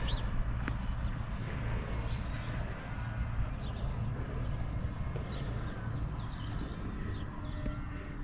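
Outdoor ambience: many small birds chirping in short high calls over a steady low rumble.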